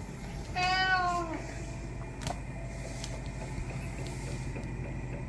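A domestic cat meows once, a drawn-out meow of about a second starting about half a second in.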